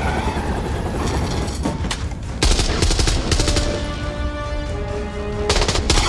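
Film sound effects of bursts of automatic gunfire: one rapid burst about two and a half seconds in lasting around a second, and another just before the end, over a continuous low rumble of vehicles and a helicopter.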